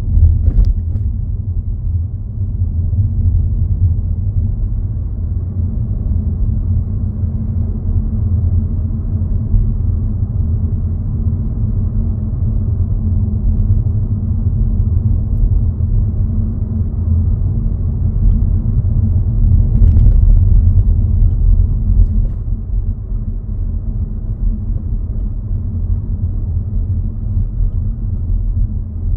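Car driving along a road, heard from inside: a steady low rumble of engine and tyres. There is a short click about half a second in and another, fainter one around twenty seconds in.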